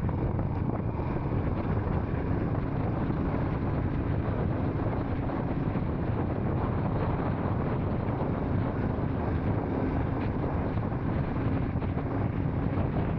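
Royal Enfield single-cylinder motorcycle running steadily at road speed, its engine and exhaust under wind noise on the microphone.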